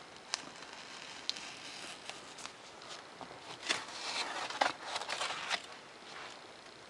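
An X-Acto hobby knife ticking and scraping as it cuts along the lines of a paper plan sheet. The paper rustles as the sheet is turned, loudest about four to five and a half seconds in.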